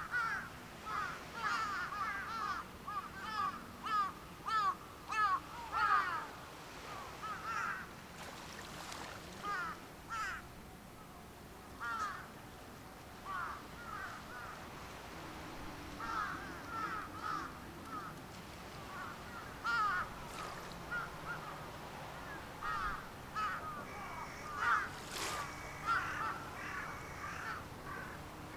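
Birds calling over and over, short harsh calls coming in quick runs, several a second, with pauses between the runs.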